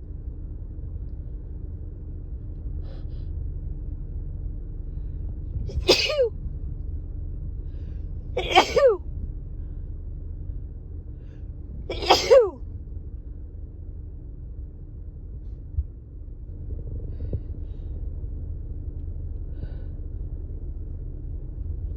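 A woman sneezing three times, about six, eight and a half and twelve seconds in, each a short, sharp sneeze that drops in pitch. The sneezes come from an itchy, tickly head cold that has stuffed up her nose.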